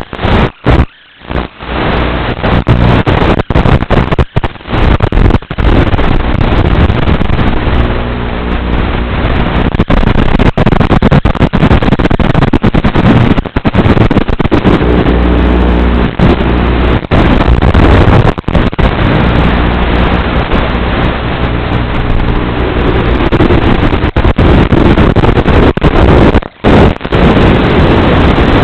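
Strong wind buffeting the microphone: a loud, rough, continuous rumble with brief dropouts here and there.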